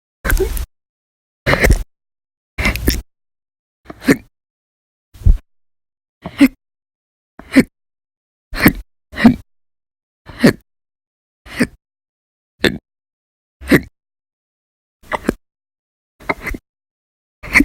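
A person hiccupping very loudly and violently, about one sharp hiccup a second, some sixteen in a row, once two in quick succession. It is a persistent bout of hiccups that goes on for hours.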